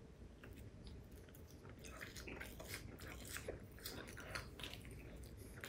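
A person biting and chewing a soft, stretchy Japanese marshmallow stick: faint wet mouth clicks and smacks that come more often from about two seconds in.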